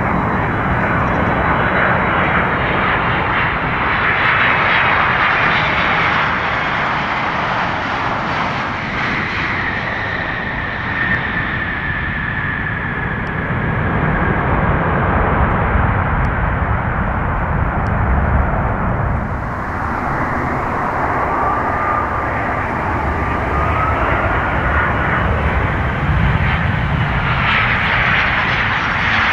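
Jet airliner engines on landing, loud and continuous: first a Boeing 767-300ER's turbofans through touchdown and rollout, with a whine that slowly falls in pitch. About two-thirds through, an abrupt change gives way to a Boeing 737-800's CFM56 engines on short final, with a whine that rises slightly.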